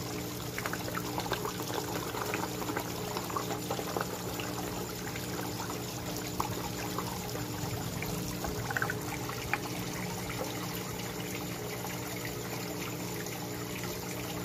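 Water from a small rock waterfall pouring and splashing steadily into a koi pond, with a steady low hum underneath. Scattered small splashes and clicks at the water surface come through the first few seconds and again around the middle.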